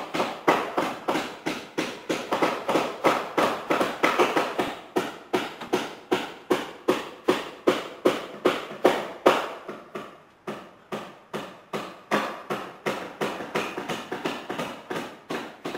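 Regular knocking, about three sharp strikes a second with a short ring after each. It fades briefly about ten seconds in, then picks up again.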